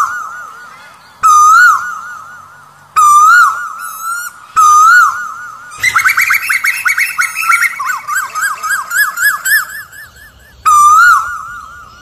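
Asian koel calling loudly. Short calls come about every one and a half seconds, then a fast run of quick rising notes lasts about four seconds, and the call returns near the end.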